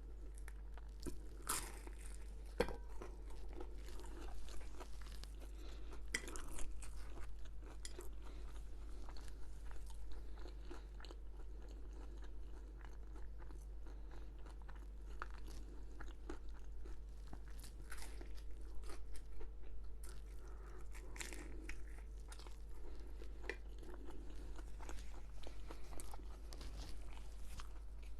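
A person biting and chewing crunchy food close to the microphone: scattered crisp crunches and chewing all through.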